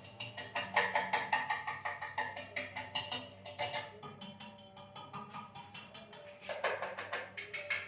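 Background music with a steady, quick beat of sharp wood-block-like clicks over sustained tones, thinning out briefly midway.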